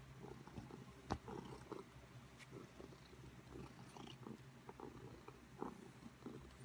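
Domestic cat purring faintly and steadily, held close, with soft rustling crackles and one sharp click about a second in.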